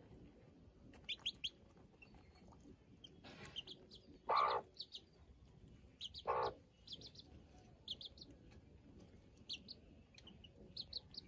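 Chicks peeping in short, high runs of two to four chirps, with two louder, lower calls from the mother hen about four and six seconds in.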